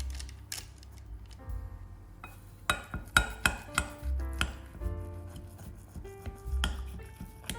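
Background music, with a run of sharp kitchen taps and knocks of utensils on a board or dish, about three seconds in and again near the end.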